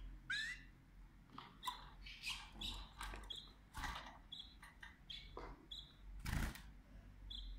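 Domestic canaries chirping: short, high calls repeated many times, with a few rising notes, mixed with small flutters and rustles in the cage, and a louder rustle about six seconds in.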